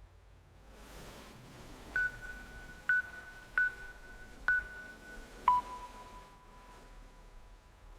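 A series of electronic beeps: four short beeps at the same pitch, under a second apart, then a lower tone held for a couple of seconds.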